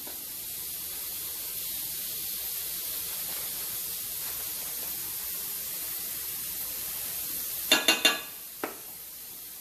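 A steady hiss, then nearly eight seconds in a quick run of metal spoon clinks against kitchenware, with one more click a moment later.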